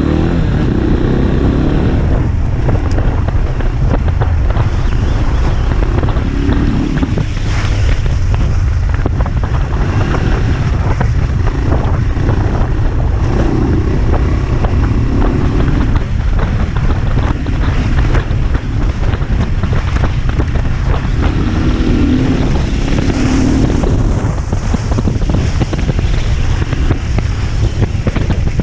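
AJP PR7 adventure motorcycle's single-cylinder engine running under way on a rough dirt track, its revs rising and falling, under heavy wind buffeting on the microphone.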